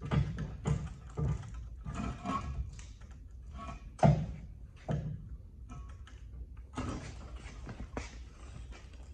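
Metal clunks and knocks from a bottle jack being worked with its long bar under a truck's leaf spring pack. At first they come about every half second, and there is one sharp clank about four seconds in, followed by scattered lighter knocks.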